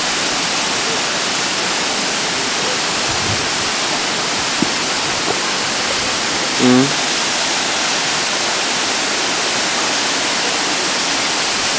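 Waterfall: a steady, even rush of falling water. A short pitched call cuts through it once, a little past halfway.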